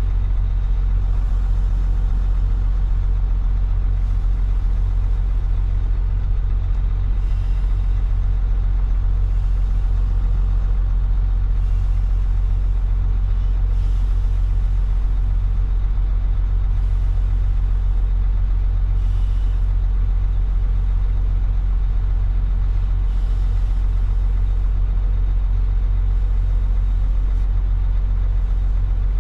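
Heavy truck's diesel engine idling steadily with a low, even rumble. Faint short hisses come every few seconds.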